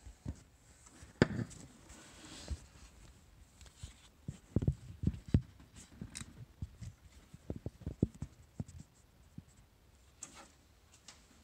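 Scattered sharp clicks and knocks with no cranking or engine running, the sound of the 1991 Toyota 4Runner's starter solenoid clicking on key turns while the 22RE engine fails to crank or start. The clicks come in irregular groups, the loudest about a second in.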